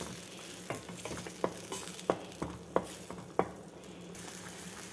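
Thick onion paste sizzling and bubbling in hot oil in a stainless steel kadai as a wooden spatula stirs it, with short pops two or three times a second. The paste is boiling down and thickening, with the oil separating at the sides.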